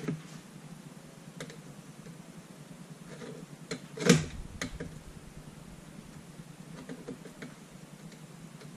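Scattered small clicks and taps of a chainsaw's on/off switch and its wire being worked into the plastic handle housing with pliers, with one sharper knock about four seconds in.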